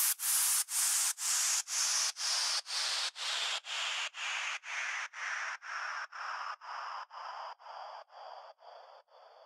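Electronic music outro: rhythmic pulses of filtered white noise, about two a second, sweeping slowly downward in pitch and fading out.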